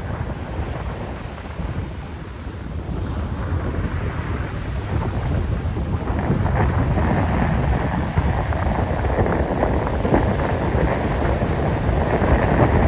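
Strong wind buffeting the microphone in a low rumble, over the wash of choppy sea water; it grows louder toward the end.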